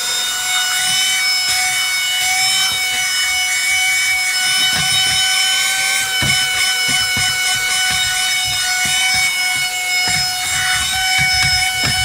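Autoommo cordless mini car vacuum running with a steady high whine, its pitch dipping slightly now and then. Its crevice nozzle rubs and scrapes along a fabric seat gap guard as it sucks up debris.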